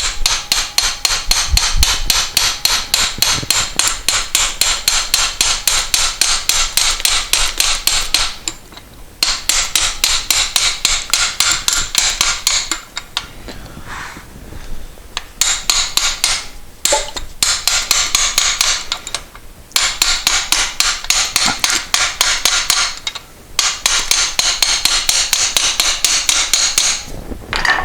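Hammer tapping a wrist pin out of a Moto Guzzi piston: rapid, ringing metal-on-metal strikes, about five a second, in runs broken by short pauses.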